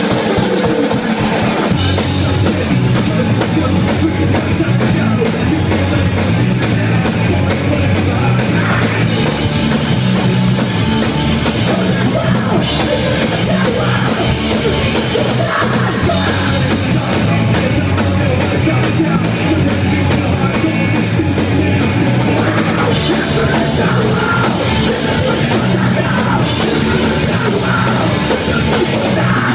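Live rock band playing loud and hard with a pounding drum kit; the bass fills out about two seconds in.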